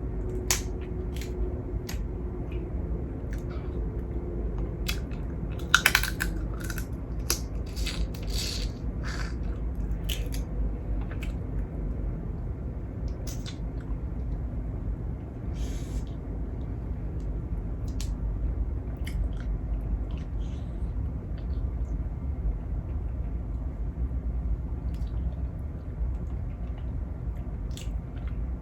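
Crab leg shells cracking and crunching as they are broken open and eaten: a run of sharp cracks in the first ten seconds, the loudest about six seconds in, then occasional clicks, over a steady low hum.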